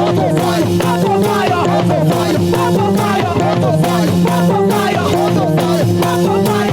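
Upbeat African gospel praise music from a live band, with steady bass notes under a constant rhythm.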